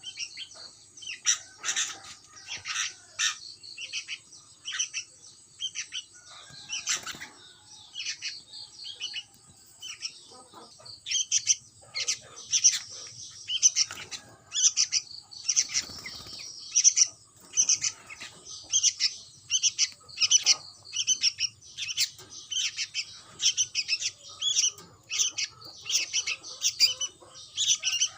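Sooty-headed bulbul chicks calling with short, high-pitched chirps. The chirps are scattered at first, then from about ten seconds in come in a steady run of two or three a second.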